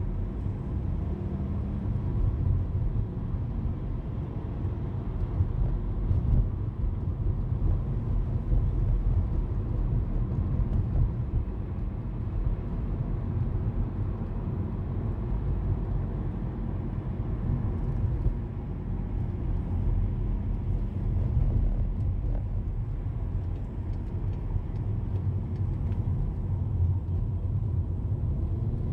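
Steady low rumble of a car driving on a city road, heard from inside the cabin: tyre and engine noise with no sharp events.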